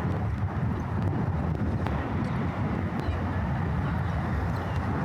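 Steady outdoor city ambience: a constant low rumble of traffic, with indistinct voices of passers-by mixed in.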